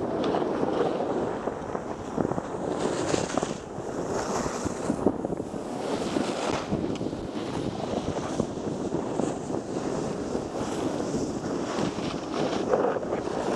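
Wind buffeting a wearable action camera's microphone, mixed with the continuous hiss and scrape of gliding down packed, groomed snow. Several louder scraping surges mark turns on the snow.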